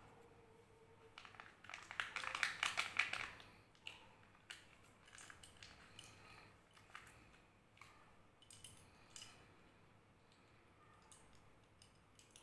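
Crinkling foil and plastic wrapping as the lid of a Kinder Joy toy capsule is peeled open. It gives a dense crackling for a couple of seconds near the start, then scattered light clicks and rustles as the small plastic toy parts are unwrapped and handled.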